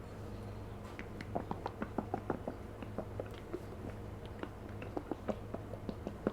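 Close-miked wet mouth noises: an irregular run of quick lip smacks and tongue clicks in a mouth coated with drinking yogurt, starting about a second in and bunching up near the middle and again near the end.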